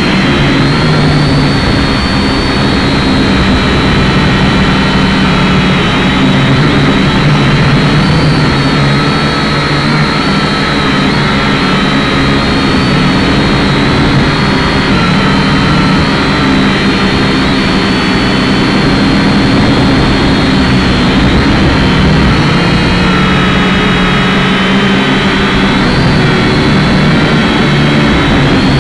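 Syma X5C quadcopter's four propeller motors whining loudly and steadily, heard close up from the drone's own onboard camera. The pitch wavers slightly up and down as the throttle changes in flight.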